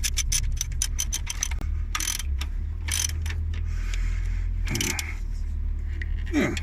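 Ratchet spanner clicking rapidly, about ten clicks a second, as nuts are done up on a bus's clutch slave cylinder mount. The clicking stops about a second and a half in, followed by a few separate scrapes and knocks of tool on metal, over a steady low hum.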